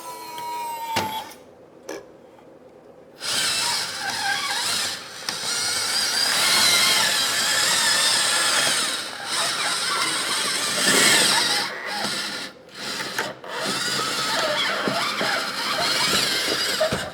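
Electric motors and gearing of a radio-controlled model bulldozer whirring as it is driven, running in spells with several short stops.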